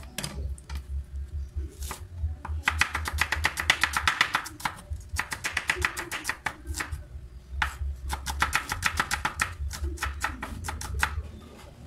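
Cleaver chopping a red onion on a wooden cutting board: fast runs of sharp knocks, about ten a second, in several bursts with short pauses between.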